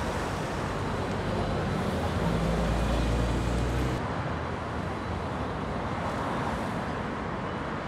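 City street traffic: a steady wash of passing vehicles, with a low engine hum loudest from about two seconds in that stops suddenly about four seconds in.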